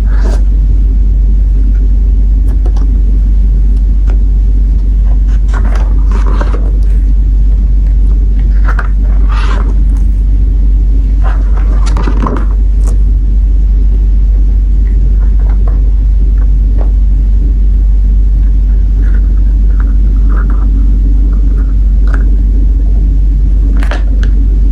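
A steady low rumble, with short irregular rustles and clicks from sticker sheets and packaging being handled.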